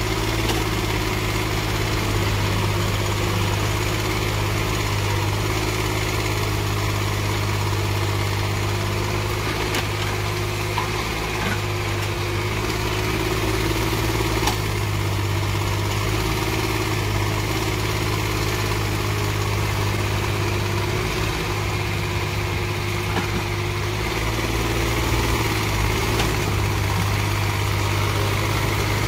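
Yanmar ViO mini excavator's diesel engine running steadily as it digs and loads soil, its pitch shifting slightly now and then. A few faint knocks sound near the middle.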